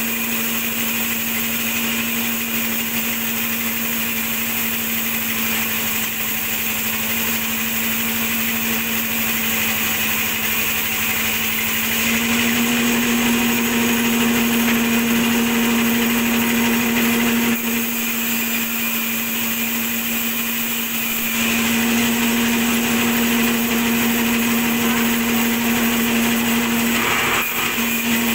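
Large sawmill band saw running with a steady hum over a noisy rush as its blade cuts a log, the hum growing louder twice for several seconds.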